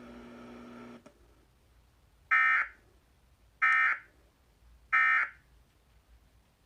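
Emergency Alert System end-of-message: three short, identical bursts of SAME digital data tones (the 'NNNN' EOM code), buzzing about a second apart. They signal that the warning broadcast is over. Before them a faint steady hum cuts off with a click.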